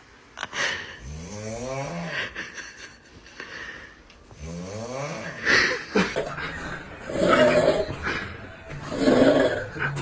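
Snoring, as in a compilation of several clips: two long pitched snores whose pitch rises and then falls. About six seconds in the clip changes to a run of noisy snores, one about every two seconds.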